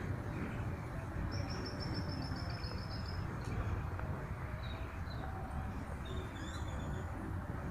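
Small birds chirping over a steady low rumble: a rapid run of about a dozen high notes starting about a second in, then a few short single chirps later.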